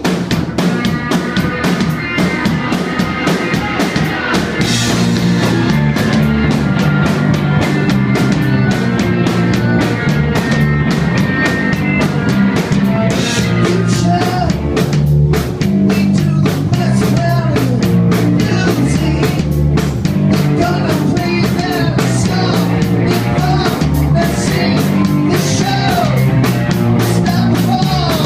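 Live rock band playing loud: distorted electric guitars over a driving drum-kit beat, with a man singing into the microphone in the second half.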